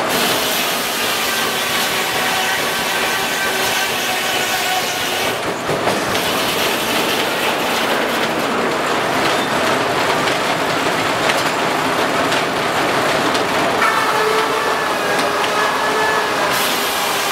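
Steam-powered sawmill running: steady mechanical clatter and hiss from the steam engine and mill machinery, with a whining tone coming in near the end.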